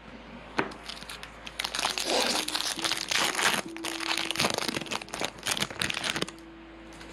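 Foil wrapper of a Topps Chrome baseball card pack being torn open and crinkled by hand. It is a dense crackle from about half a second in until shortly before the end.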